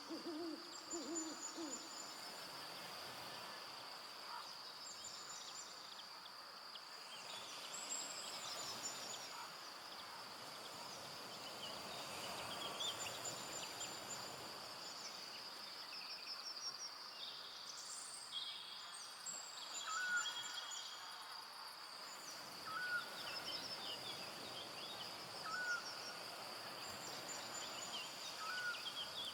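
Forest evening ambience: a steady high insect drone with scattered high bird chirps, an owl hooting, and a short whistled note repeated every few seconds in the second half.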